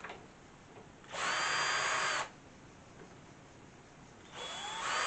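Power drill-driver run in two short bursts of about a second each, one a little after the start and one near the end. The motor whine spins up and winds down with each run as it drives out doorknob screws.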